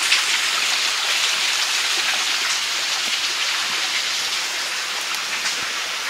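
Waterfall running: a steady hiss of falling water that eases off a little toward the end.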